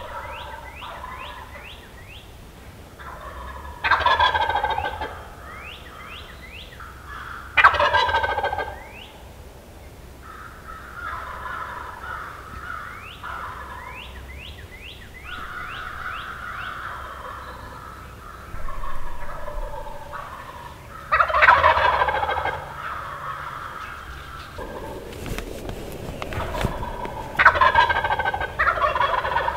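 Wild turkey gobblers gobbling on the roost: four loud gobbles, about four and eight seconds in and twice in the last ten seconds. Other birds call in between with quick runs of short notes.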